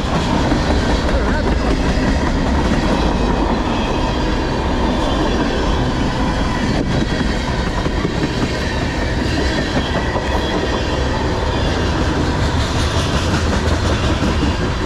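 Freight cars of a long manifest train (boxcars and tank cars) rolling past at speed: a steady, loud rolling noise of steel wheels on the rails.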